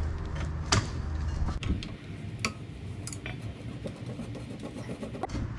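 Sharp metal clicks and scraping as a Model A Ford front axle kingpin is twisted and drawn out of its spindle with locking pliers, a handful of separate clicks spread across the few seconds.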